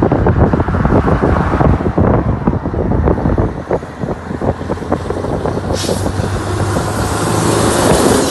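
Wind buffeting and rumble from riding in an open-top car at road speed, over the steady low drone of engines; a short hiss about six seconds in.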